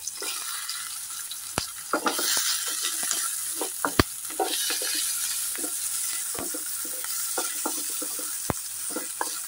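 Chopped onions sizzling in hot oil in a kadai while being stirred with a wooden spatula. The frying hiss grows louder about two seconds in, and a few sharp clicks stand out, the strongest near the middle.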